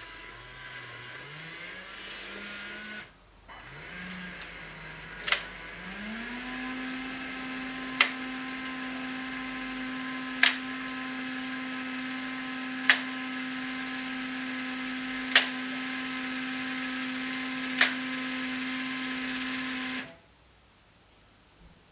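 Electric motor of a curved vertical blind track running. Its hum wavers in pitch for the first few seconds, stops briefly, then rises and holds steady while the blind draws back, with a sharp click about every two and a half seconds. It cuts off suddenly near the end as the blind reaches fully open.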